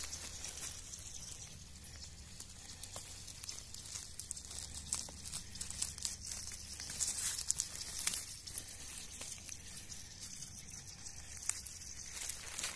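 Irregular dry rustling and crackling throughout, with many scattered sharp clicks.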